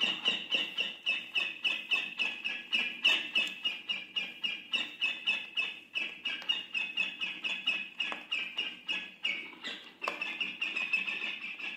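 Campo flicker giving its alarm call: a rapid, even series of ringing notes, about five a second, with a short pause near the end.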